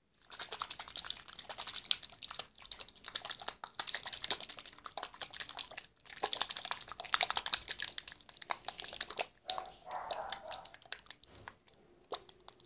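A lidded container of slime powder, glitter and water being shaken hard by hand: a fast, continuous rattling and sloshing, with a brief break about six seconds in. It dies away after about nine and a half seconds.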